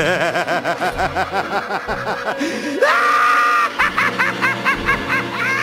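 A man's Joker-style cackling laugh: a fast run of 'ha-ha-ha's, a rising shriek held for about a second, about three seconds in, then more rapid cackling.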